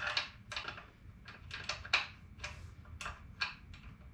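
A dozen or so short, irregular metallic clicks and scrapes, about three a second, as a bolt is worked against the turbocharger mounting flange of a Detroit Diesel 6-71. The bolt is not lining up with the holes and will not go through.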